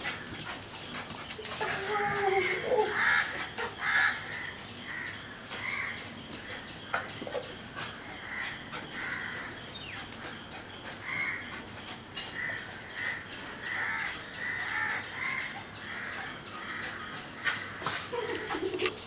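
Crows cawing in quick runs of repeated calls, a couple of calls a second, with a short pause between runs.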